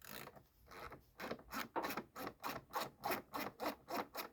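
Ratchet wrench clicking in quick, even strokes, about four to five a second, as a blower motor mounting screw is backed out.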